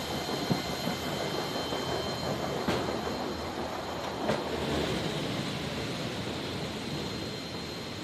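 A loaded cargo pallet rolling on the roller conveyor floor of a C-17 Globemaster III's cargo bay as it is pushed by hand: a steady rumble, with three sharp knocks in the first half. A steady high whine runs underneath.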